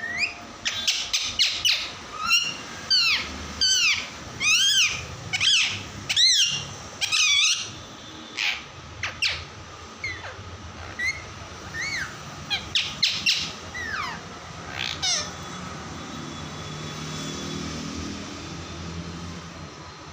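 Parrot giving a rapid series of short, shrill, arching chirps, densest over the first several seconds, then sparser and stopping around three-quarters of the way through. A faint low hum is left near the end.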